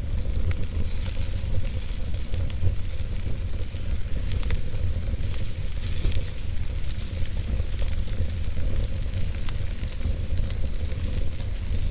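Wood fire burning in a fireplace: a steady crackling hiss with frequent small pops and snaps over a constant low rumble.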